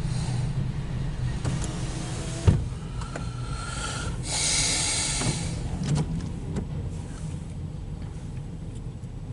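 Loaded autorack freight train rolling past with a steady low rumble. A single sharp knock about two and a half seconds in, then a brief hiss and a few lighter clicks.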